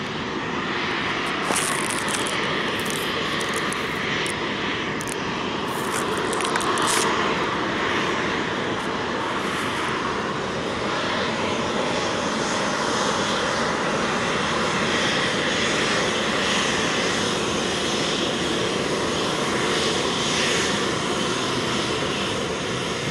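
Boeing 737-700's CFM56-7B jet engines running steadily as the airliner rolls along the runway after landing, a continuous even rush of jet noise.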